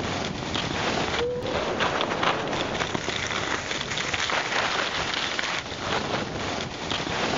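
Skis sliding over hard-packed snow on a downhill run, a dense crackling noise, with wind on the microphone.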